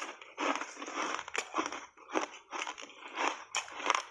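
Chewing reshaped ice coated in matcha and milk powder, close-miked: a quick run of crisp crunches, about two to three a second.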